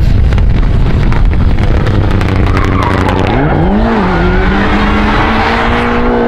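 Mitsubishi Lancer Evolution rally car drifting on tarmac, its engine at high revs with the tyres skidding and squealing. Sharp crackles run through the first three seconds. About three and a half seconds in, the revs climb and then hold steady while the car spins in a cloud of tyre smoke.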